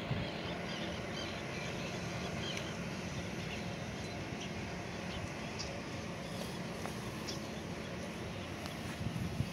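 Steady low outdoor rumble with a faint continuous hum, and short bird chirps scattered throughout.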